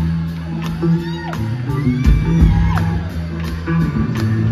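Live blues-rock band playing: drums keeping a steady beat about twice a second under bass and electric guitar, with audience members whooping and shouting over the music.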